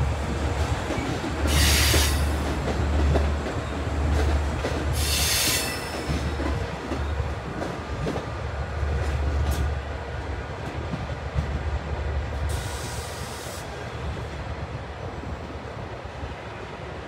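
EMD DE30AC diesel locomotive hauling a three-car train past, its engine a loud low rumble that fades from about the middle on as the train moves away. Wheel noise rises in three short high hissing bursts, the last near the end.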